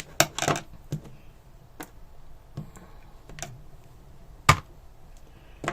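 Sharp clicks and snaps of pliers and thin nichrome wire being cut and handled, a few scattered strokes with the loudest snap about four and a half seconds in.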